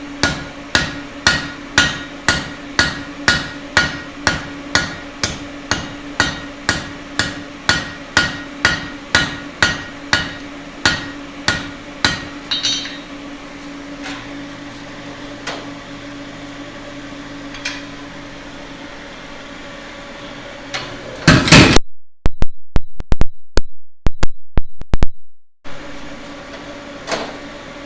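Blacksmith's hand hammer striking hot steel on an anvil, drawing out a taper to forge a leaf. The blows are even, about two a second, and stop about twelve seconds in. Later comes a short run of loud, distorted knocks with the sound cutting out between them, then one last blow near the end.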